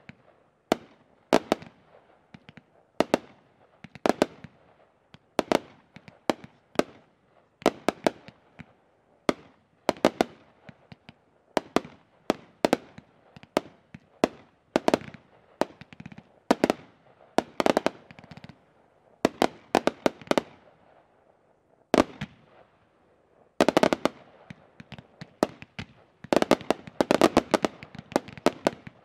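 200-gram consumer firework cakes firing gold tail-to-break shots, a cluster of sharp pops about every second. In the last few seconds several colour cakes fire together and the pops become a dense, rapid run.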